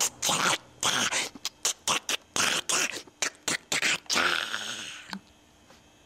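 A man making vocal percussion with his mouth, beatbox-style: an irregular run of sharp clicks, pops and hissed puffs, ending in a longer fading hiss about four seconds in, then it goes quiet.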